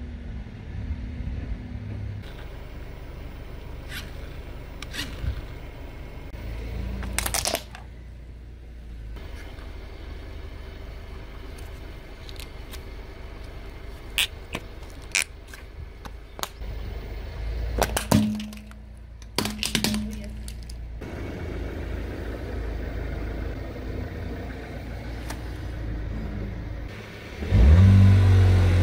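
A car engine idles with a low hum under scattered clicks and a few sharp cracks from plastic toys being handled and crushed under the tyre on brick paving. Near the end the engine revs hard at a standstill for a launch-control start.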